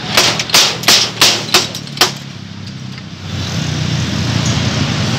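About six sharp clacks or pops in two seconds as glass soda bottles are handled and opened at a soda stall, followed by a steady low rumble.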